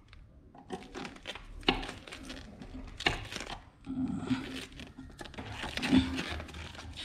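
Handling noises: irregular clicks, taps and rustling as wiring and tools are worked by hand.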